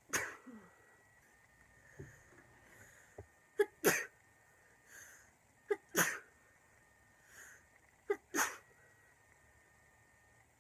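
A girl with a really bad cold in a sneezing fit: four sneezes, about one every two to two and a half seconds, each a quick catch then a sharp burst, with faint breaths drawn in between.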